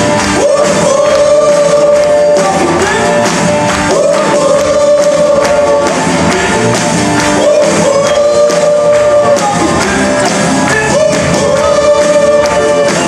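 Live pop-rock concert music: a band plays while a singer holds long sung notes. Heard loud and reverberant from among the audience in a large hall.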